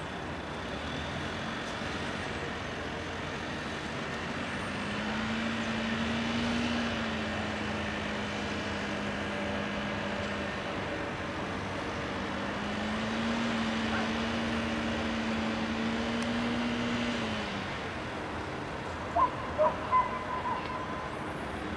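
Lure-coursing machine's motor hauling the lure line: a steady hum that starts about five seconds in, rises in pitch twice as it speeds up, then drops and stops. Three short, loud sounds come near the end.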